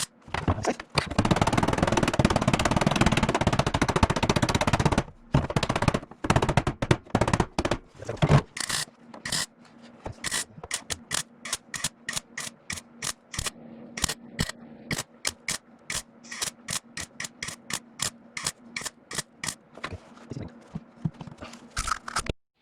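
Welding arc on a sheet-steel rust-repair patch: a continuous crackling bead for about four seconds, then a rapid series of short sizzling bursts, about two or three a second, as the panel is stitched and plug-welded in place.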